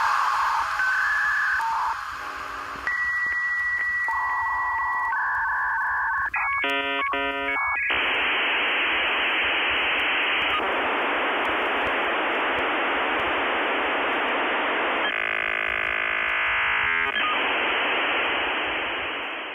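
Electronic soundtrack ending: a few steady synthetic beeping tones and a short glitchy stutter, then a steady hiss of radio-like static that fades out at the very end.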